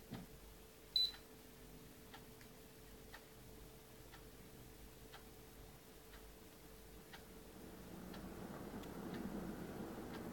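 Split air conditioner giving a short high beep about a second in, then, from about eight seconds, a low hum that slowly swells as the unit starts up. Faint ticking about once a second runs underneath.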